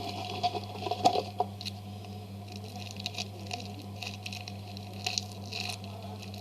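Foam squishy toys being handled and squeezed, making light crackling and rustling ticks, with a sharper click about a second in. A steady low electrical hum runs underneath.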